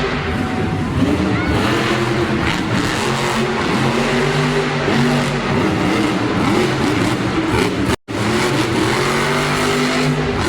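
Monster truck's supercharged V8 engine revving, its pitch climbing and falling again and again, over the steady noise of a packed arena. The sound cuts out for a moment about 8 seconds in.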